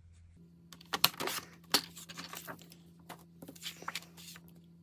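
Sheets of patterned paper being handled and slid across a paper trimmer: a run of paper rustles and soft taps, loudest about one to two seconds in.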